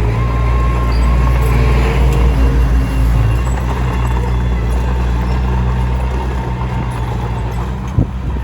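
Komatsu D21P bulldozer's diesel engine running steadily at working speed, a continuous low drone, with one sharp knock about eight seconds in.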